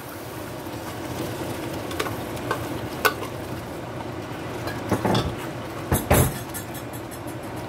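Ingredients sizzling and hissing in a pot of hot browned sugar while being stirred, with a spoon clinking and knocking against the pot a few times, loudest a little after five and six seconds in.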